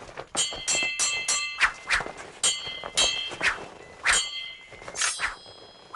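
Steel swords clashing in a fast sword fight: a quick run of sharp, ringing clangs, thickest in the first second and a half and then every half second or so. Whooshing swings of the blades fall in between.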